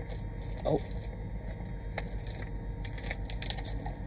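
A sealed plastic bag crinkling and clicking against a wire rack as it is pushed down into a sous vide water bath, with a brief louder rustle under a second in and scattered light clicks, over a steady low hum.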